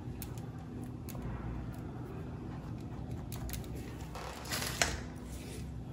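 Quiet room tone with a low steady hum and a few soft clicks; about four and a half seconds in, a brief crinkle of the plastic film being handled on a processed cheese slice.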